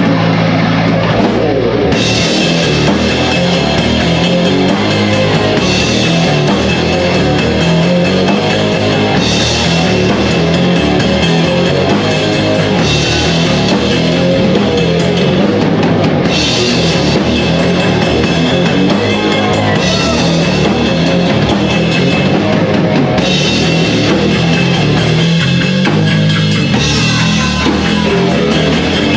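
Rock band playing heavy metal live: distorted electric guitar over a full drum kit. The cymbals come crashing in about two seconds in.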